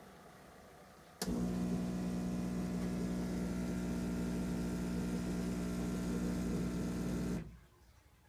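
Keurig B3000 brewer's internal pump switches on with a click about a second in and hums steadily for about six seconds, then shuts off, at the end of the brew cycle.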